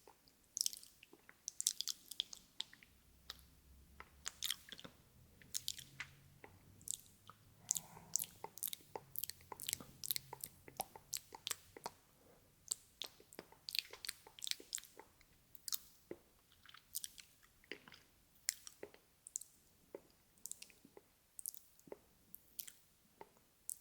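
Close-miked ASMR mouth sounds: a continuous run of short, wet mouth clicks and smacks, several a second and irregular, like nom-nom chewing noises.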